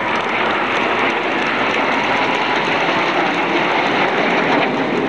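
Jet noise from several Aermacchi MB-339 jet trainers in flight, their Rolls-Royce Viper turbojets making a steady, loud rush.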